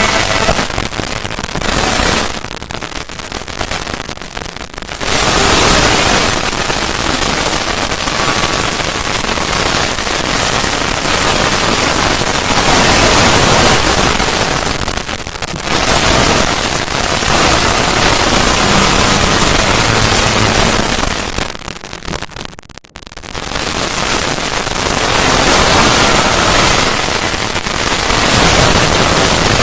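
A harsh, loud static-like noise effect that fills every pitch, billed as a "void" sound effect. It sags quieter for a few seconds early on and drops out briefly past the middle before coming back at full strength.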